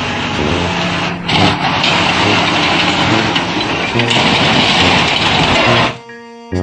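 Loud, steady engine or machinery noise that drops away suddenly about six seconds in.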